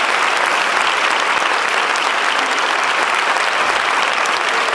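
Audience applauding: dense, steady clapping that holds without a break.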